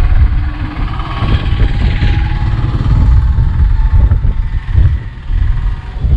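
Strong wind buffeting the microphone, with the steady drone of an engine running underneath it for the first few seconds.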